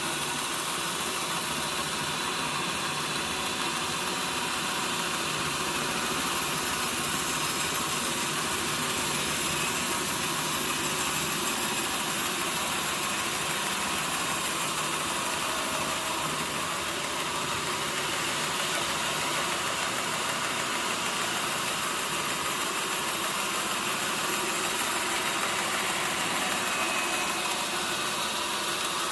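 Sawmill machinery running with a steady mechanical drone and hiss, unchanging throughout.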